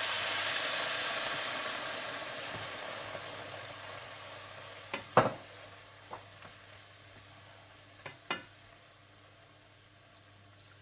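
Water poured into a frying pan of hot oil and fried bread hisses and sizzles strongly at first, then the sizzle dies away steadily over several seconds. A wooden spoon knocks against the pan twice about halfway through, and twice more a few seconds later.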